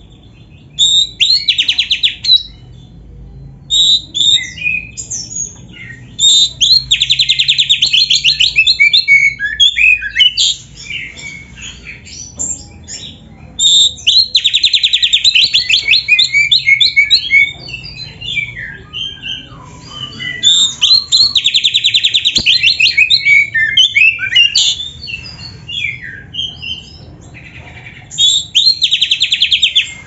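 Oriental magpie-robin singing loudly in phrases of a few seconds with short pauses between, mixing varied whistled notes with very fast, even trills in the style of a canary's song.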